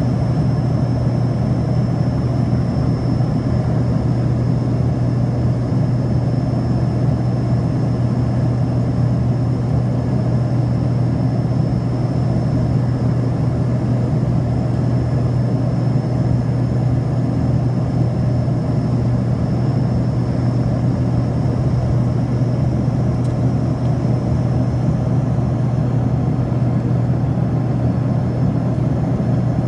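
Steady cabin noise of a passenger aircraft in flight: engine and airflow drone with a strong low hum and a thin, steady high whine above it.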